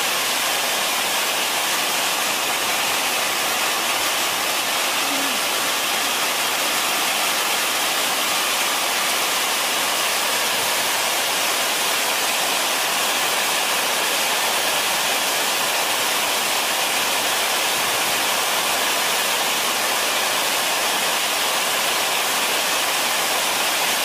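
Waterfall plunging into a plunge pool: a steady, even rush of falling water that never changes in loudness.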